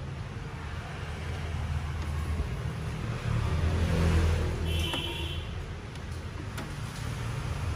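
Low steady rumble and hiss from a Sharp GS-TV3 stereo system's speakers with no music playing, as in the quiet gap between tracks.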